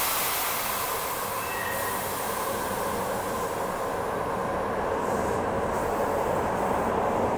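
Osaka Metro 80 series linear-motor subway train running along an underground station platform: a steady rush of wheel and running noise, with a brief faint squeal about a second and a half in.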